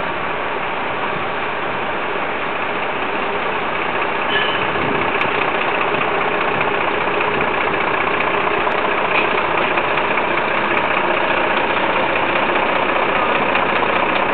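Truck engine running steadily, a little louder from about four seconds in.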